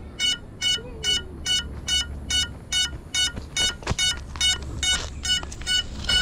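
Crashed FPV drone's lost-model beeper sounding a steady train of short, high beeps, about two or three a second, signalling the downed quad's position. There is a single knock about four seconds in, and handling noise at the end as the drone is picked up.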